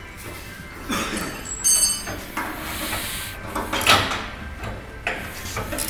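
Irregular metal clanks, knocks and scrapes from heavy pump-skid parts being handled. The loudest strike, about two seconds in, rings briefly like struck steel.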